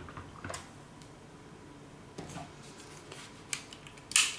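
Handling sounds of a shaver's cleaning station and the shaver being moved on a wooden table: a few scattered light clicks and knocks, with the loudest, sharpest click just before the end.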